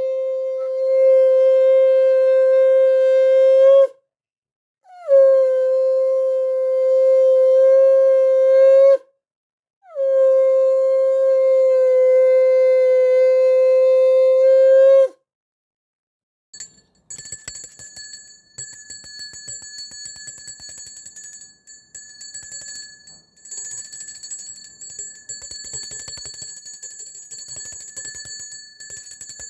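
Conch shell (shankha) blown three times, each a long steady note of about four to five seconds with brief breaks between. After a short silence, a small temple hand bell is rung rapidly and without stopping, as at a Hindu aarti.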